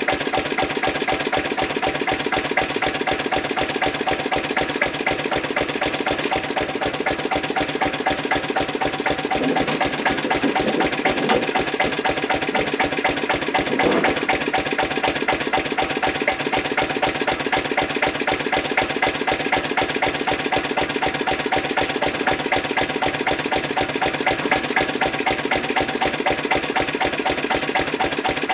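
Lister CS single-cylinder diesel stationary engine running steadily, with a rapid, even beat.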